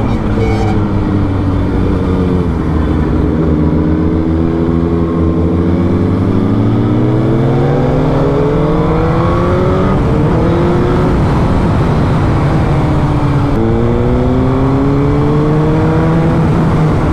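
Suzuki GSX-R1000's inline-four engine heard from the rider's seat, rising slowly in pitch as the bike accelerates, dropping off about ten seconds in and climbing again from about thirteen and a half seconds.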